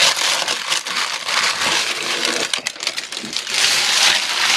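Parchment paper crinkling and rustling as a freshly baked sourdough loaf is lifted out of a cast iron Dutch oven by the paper and set on a wire cooling rack, louder near the end.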